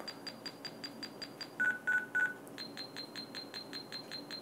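Small loudspeaker on a breadboarded microcontroller circuit giving short, high electronic beeps at about five a second as the digital volume control is stepped up and down with push buttons. About a third of the way in, the high beeps break for three louder, lower beeps, then the fast high beeps resume.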